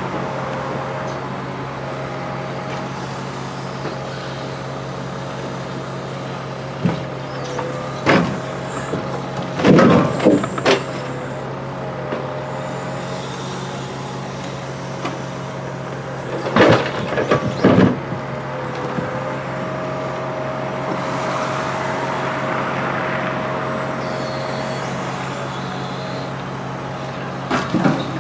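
Timber truck's diesel engine running steadily while its truck-mounted loader crane works, with a tone that wavers up and down in pitch as the crane moves. Heavy wooden knocks and clunks of logs in the grapple come in clusters about a third of the way in, again past the middle, and at the very end.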